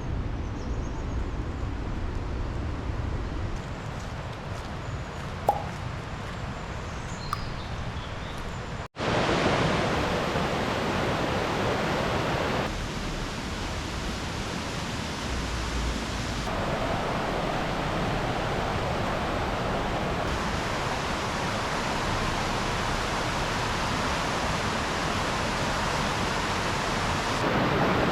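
Rushing water of a river and its waterfalls: a steady, even rush, quieter for the first nine or so seconds with a few faint high chirps. After a brief break it comes back louder and changes abruptly several times.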